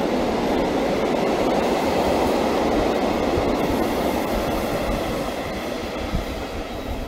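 Freight train of covered wagons rolling past: steady rumble and rattle of steel wheels on rail, with a couple of low knocks near the end as the sound begins to fade.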